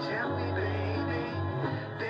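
Lo-fi band music from a home four-track cassette recording, with a low note held for about a second in the middle.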